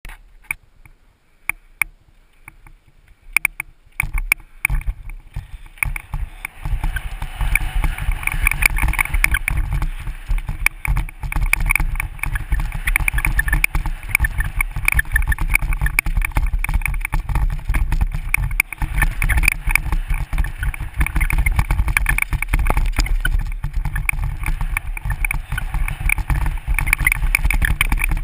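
Mountain bike descending a dirt and gravel trail. After a quieter start with a few clicks, a continuous rush of wind on the microphone sets in about four seconds in, with tyres crunching over loose dirt and the bike rattling.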